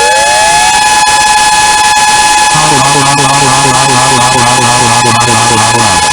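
Warning sirens sounding for a tsunami alarm: one already holding a steady wail, a second winding up to a steady pitch just above it within the first second. From about two and a half seconds a lower, pulsing horn-like alarm joins them and cuts off near the end.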